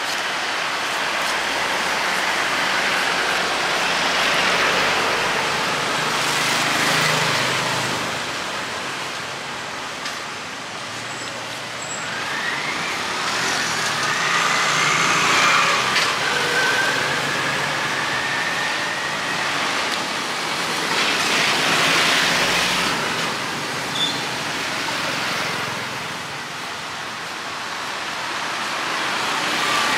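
Street traffic: motor vehicles passing in waves that swell and fade several times, with an engine whine that rises and falls in pitch near the middle.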